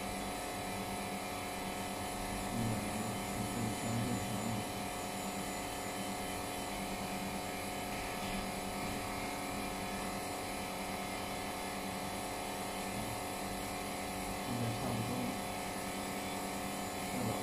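Steady electrical hum of a running flex-cable bonding machine, with short low murmurs about three seconds in and again near the end.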